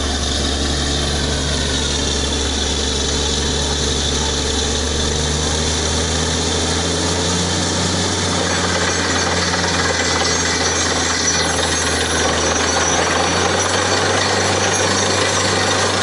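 Truck-mounted borewell drilling rig running steadily while drilling, a loud low machine drone with a hiss of water and slurry over it; the low drone shifts slightly about seven seconds in.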